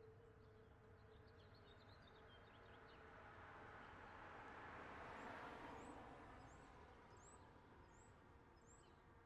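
Faint outdoor ambience after a siren test. A steady siren tone from distant outdoor warning sirens fades out in the first few seconds. A broad swell of noise then rises and falls around the middle, and birds chirp, with a run of about five short high chirps near the end.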